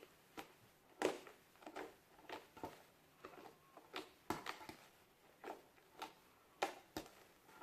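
Fluffy shaving-cream slime being squeezed and stretched by hand, giving faint, irregular sticky clicks and squishes about one or two a second.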